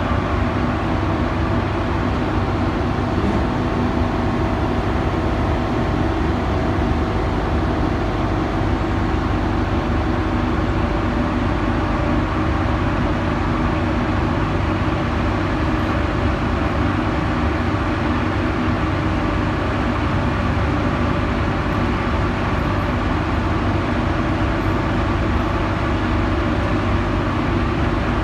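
Shaft-sinking hoist machinery running with a steady drone and several constant hum tones as it lowers its hook on the wire rope down the shaft.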